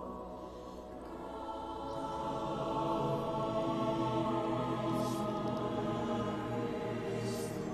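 Background music of slow, sustained choir-like voices, swelling about two seconds in.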